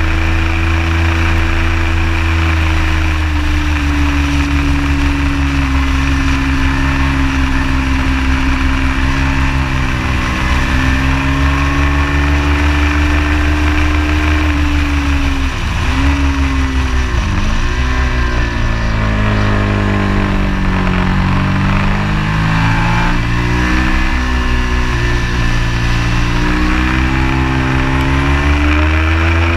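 Ducati Hypermotard 821 SP's 821 cc L-twin running at speed through a Termignoni full-race exhaust. The engine holds high revs, drops sharply twice about halfway through as the bike slows for a corner, runs lower and uneven for a few seconds, then rises again near the end.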